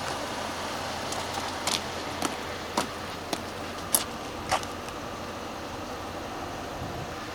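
A steady background hum with about seven short, sharp clicks or knocks in the middle stretch.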